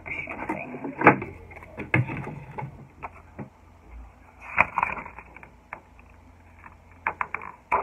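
Craft-kit pieces and their packaging being handled: scattered clicks, knocks and rustles.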